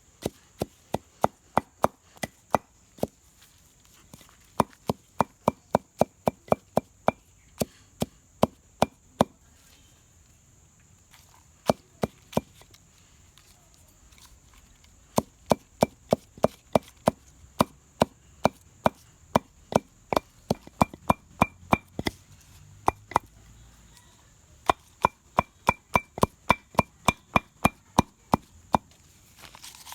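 Chopping on a wooden surface: sharp, steady strokes at about three a second, in runs of several seconds with short pauses between them, as fruit or leaves are cut up for juice.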